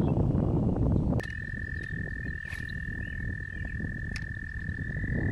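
A frog trilling, one long steady high-pitched trill that carries on through, under the low rumble of wind on the microphone that drops down about a second in. A sharp click about a second in and another near four seconds.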